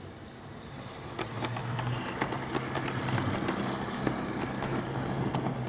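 Model Class 158 diesel multiple unit train running past close by on its track: a steady low hum with irregular clicking from the wheels on the rails, growing louder as it approaches over the first couple of seconds.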